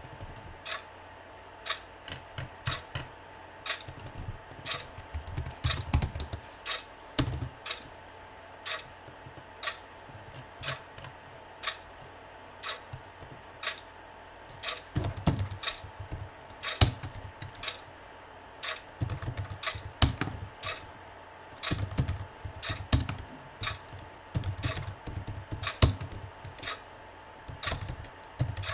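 Bursts of typing on a computer keyboard, keys clacking in irregular runs, over a clock ticking steadily.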